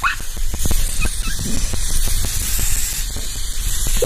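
Aerosol cans of silly string spraying with a hiss, over a low rumble and scattered knocks.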